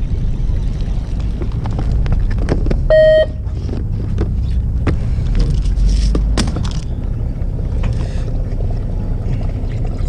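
Fishing boat's engine running with a steady low rumble, with scattered light clicks and one short beep about three seconds in.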